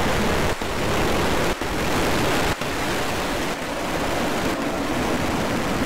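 Falcon 9 first stage's nine Merlin engines firing just after liftoff: a steady, dense rushing noise. It cuts out for an instant three times in the first few seconds.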